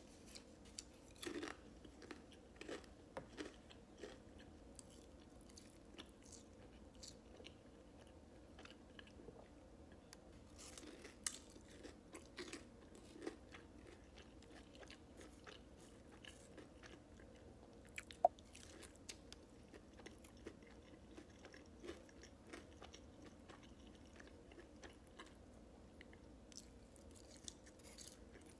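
Close-up eating sounds: biting into and chewing crispy fried hot honey chicken tenders. The sound is faint, with scattered small crunches and clicks.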